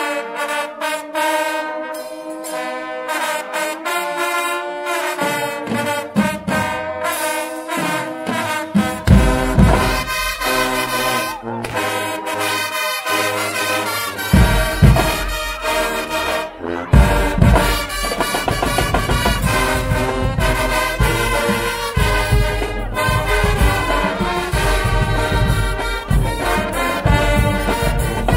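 Guggenmusik carnival band playing: trumpets and trombones in full brass, with drums coming in after a few seconds and a heavy bass-drum beat underneath from about a third of the way through.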